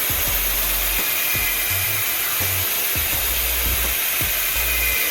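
Background music with a low bass line and a steady beat, under a steady high hiss.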